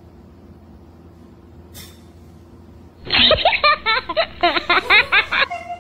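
Quiet room tone, then about three seconds in a loud laughing sound effect added in editing, lasting about two and a half seconds and cutting off suddenly.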